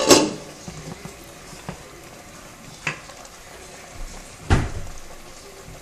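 A metal pot lid and utensils clanking on a cooking pot: a clatter at the start, two light taps, and a louder knock with a short ring about four and a half seconds in.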